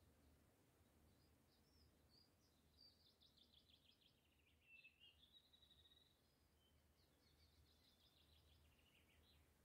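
Near silence with faint birdsong: a songbird's rapid trills and warbling phrases, from about a second and a half in until near the end, over a faint low hum.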